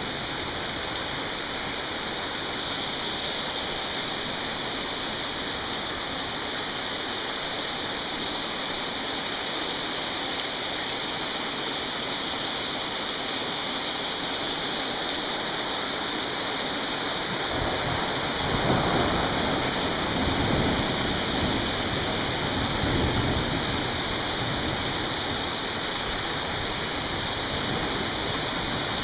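Heavy rain pouring down in a steady hiss. A low rumble swells in about 18 seconds in and fades over several seconds.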